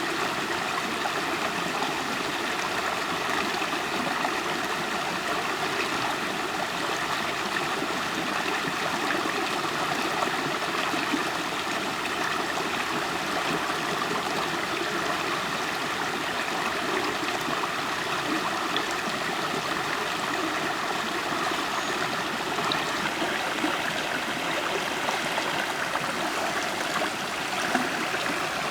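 River water flowing over stones, a steady, even rush with gurgling.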